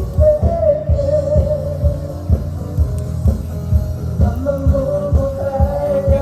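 Music with a steady low beat and a held, wavering melody line, which may be a singing voice.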